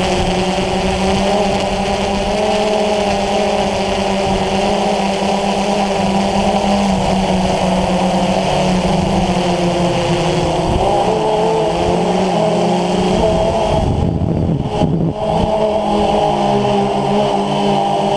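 DJI Phantom FC40 quadcopter's motors and 9450 propellers whining steadily in flight, heard from the onboard GoPro, the pitch shifting slightly as the motor speeds change. About fourteen seconds in, the whine briefly gives way to a low rumble.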